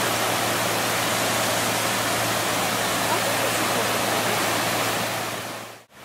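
Steady rushing noise of surf on the beach, fading out quickly just before the end.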